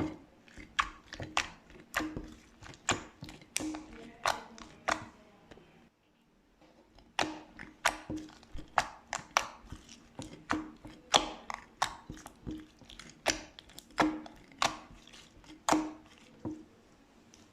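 Slime being pressed and worked, giving sharp clicking pops about twice a second, with a short pause of about two seconds near the middle.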